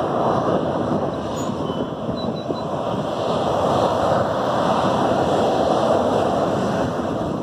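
Boeing 737-800's CFM56-7B jet engines running at taxi power as the airliner rolls slowly along the taxiway: a steady rushing noise.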